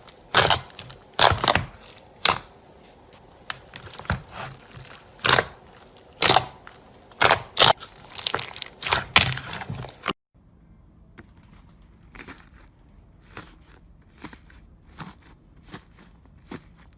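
Crisp crunching and crackling of a crunchy material worked by hand, in irregular loud strokes. About ten seconds in it cuts abruptly to a quieter passage of softer, quicker crackles.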